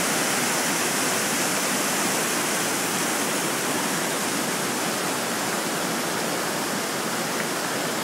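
Steady rush of water from a small waterfall and rocky stream cascading over boulders.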